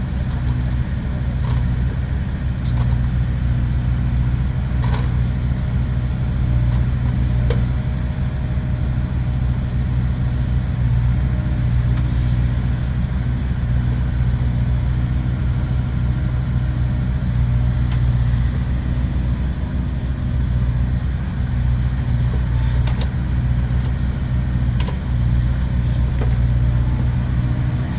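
A vehicle engine running steadily with a low, even hum, with a few faint light knocks or clicks over it.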